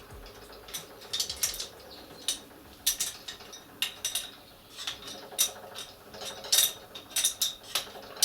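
Hand tool tightening an air-hose fitting with an adjustable spanner: irregular sharp metal clicks, roughly two a second.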